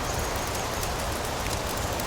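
Steady rain, a constant even hiss, with a few faint clicks mixed in.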